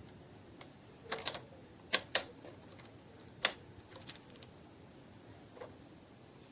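A scattering of sharp clicks and taps from small hard parts being handled: a quick cluster about a second in, the loudest two close together about two seconds in, another about three and a half seconds in, and a few fainter ones later.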